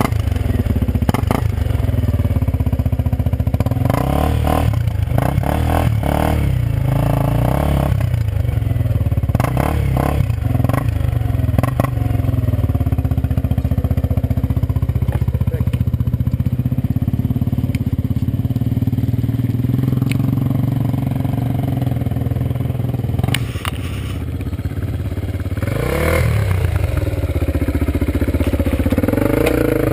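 Off-road quad's engine running under load as it climbs a steep, rutted dirt trail, with clatter of tyres and stones. Near the end a dirt bike's engine revs up, rising in pitch, as it climbs close by.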